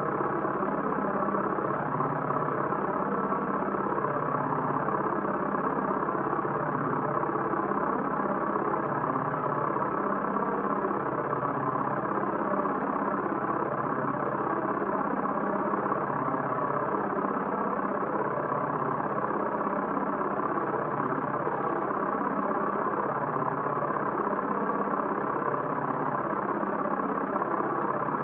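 A steady, unbroken drone with a slow regular pulse low down.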